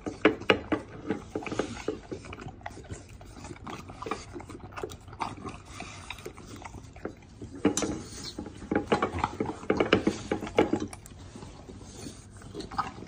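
American Bully eating and licking from a stainless steel bowl: quick runs of clicks and slurps as its tongue and teeth knock against the steel, in several clusters, busiest about eight to eleven seconds in.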